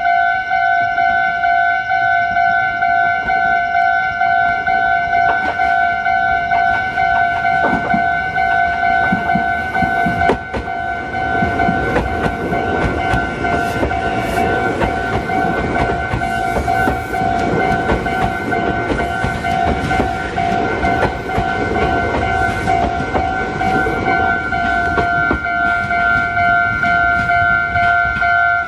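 Japanese level-crossing warning bell ringing steadily as a train passes over the crossing. The train's running noise and wheel clatter build up from about halfway through. The bell cuts off suddenly at the very end.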